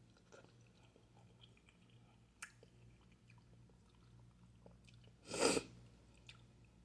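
A person eating, with faint chewing and small mouth clicks, a sharp click about two and a half seconds in, and a short, loud breathy burst about five seconds in, the loudest sound.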